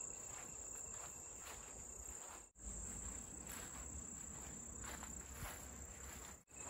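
Grass insects trilling in a steady, high-pitched chorus. The sound drops out briefly twice.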